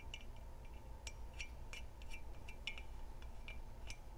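Ratchet wrench clicking in short runs of light clicks, several a second, as the spring tower bolts on a gas regulator are tightened down.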